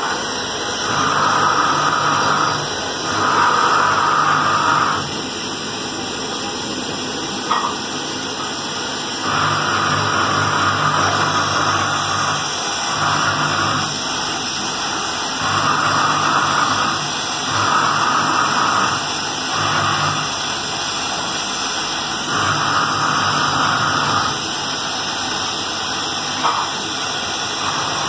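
Gas welding torch flame hissing steadily, swelling to a louder rush in spells of one to two seconds, about a dozen times over.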